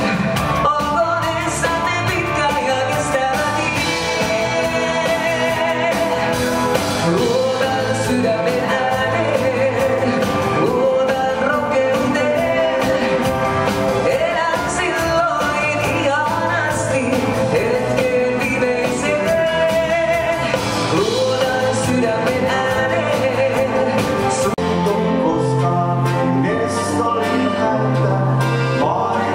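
Live dance band playing, a woman singing lead over electric guitar, drums, bass and keyboards. About 25 seconds in the music cuts to a different piece with a steady bass line.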